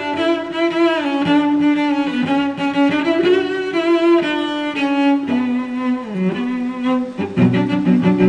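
Background music on bowed strings, cello and violin, playing a slow melody of held notes that change about once a second, with a deeper line joining near the end.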